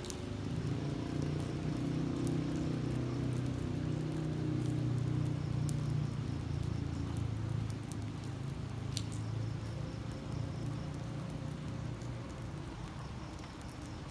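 Steady rain falling on wet asphalt, with a few sharp ticks of single drops landing close by. Under it a low rumble, louder than the rain, eases off about eight seconds in.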